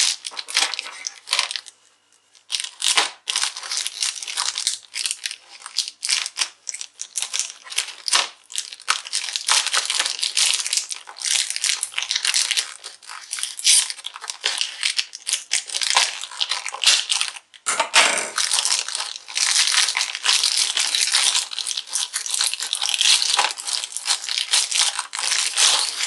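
Thin clear plastic packaging bag crinkling and crackling loudly as it is opened and handled. There are short lulls about two seconds in and again around eighteen seconds.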